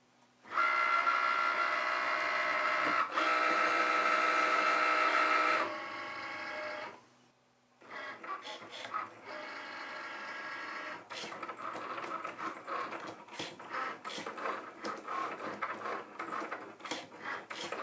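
A Cricut Maker cutting machine runs its cut, its carriage motor whining steadily for about five seconds. After a brief pause it goes on in stop-start whirs with many quick clicks as the tool head moves back and forth. The mat never loaded under the rollers, so the blade is cutting the machine instead of the paper.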